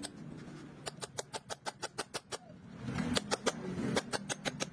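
Two runs of rapid, sharp clicks or taps, about seven a second: the first starts about a second in and lasts about a second and a half, the second follows after a short pause and runs to the end.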